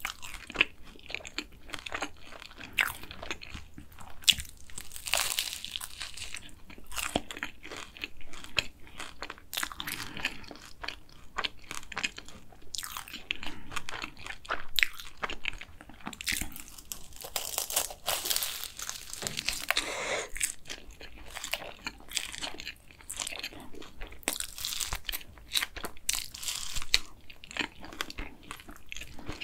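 Close-miked eating of a dark chocolate cronut: bites crunching through the chocolate coating and flaky fried pastry, then chewing with many small crackles. The crunching is densest about five seconds in and again around eighteen seconds.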